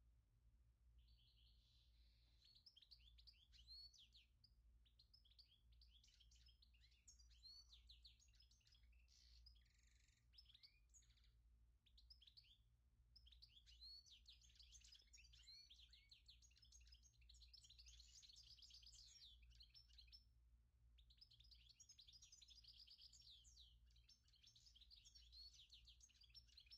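Faint, busy chirping and twittering of small birds, many quick calls overlapping, with a couple of brief pauses, over a faint steady low hum.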